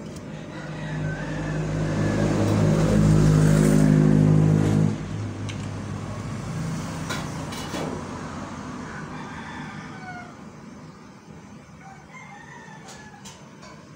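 An engine runs, growing louder for a few seconds and then cutting off abruptly about five seconds in. Faint short clucking calls follow now and then.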